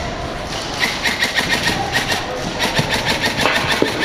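Airsoft guns firing in a close-quarters game: a dense run of sharp pops and clicks, irregular and often several a second, over a steady din.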